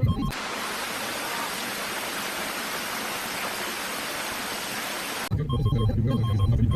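A steady, even hiss like static cuts in almost at once and stops abruptly about five seconds later. Before and after it, the Lada Vesta's dashboard warning siren sounds as rapid, repeated electronic beeping over a low cabin rumble.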